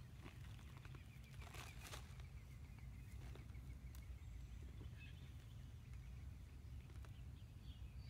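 Hands digging through a loose heap of potting soil, with soft rustling and crumbling about one and a half seconds in and again near the middle. Under it runs a steady low rumble, and a bird chirps faintly.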